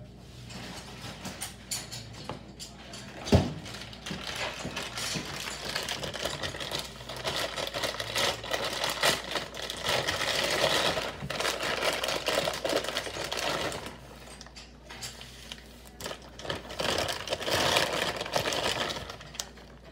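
A plastic bag of shredded cheese crinkling and rustling as it is opened and handled, loudest in two stretches, one in the middle and one near the end. A single sharp knock comes about three seconds in.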